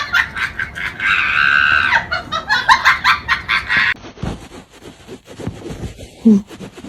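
A bird squawking and clucking rapidly, with a loud drawn-out cry about a second in. About four seconds in it cuts to quieter scattered clicks and a short low call.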